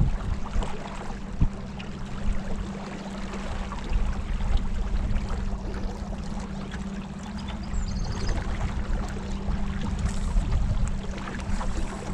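Boat motor running at a steady pitch, with water rushing and splashing along the hull.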